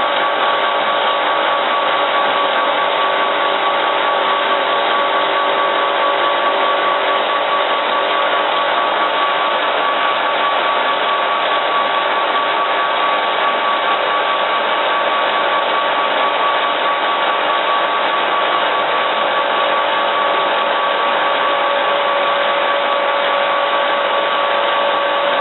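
Power grinding machine running steadily on a quartz glass rod: a continuous grinding noise with a steady whine that does not change.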